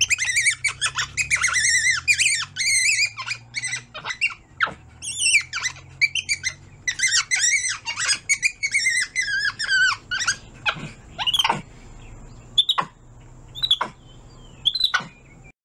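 An animal's rapid high-pitched squeaking chirps, packed closely together at first and then thinning out to a few short separate calls near the end.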